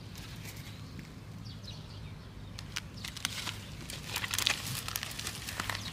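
White zebu cow moving and grazing through dry grass: scattered crisp rustles, snaps and tearing sounds, busiest about four seconds in, over a low steady hum.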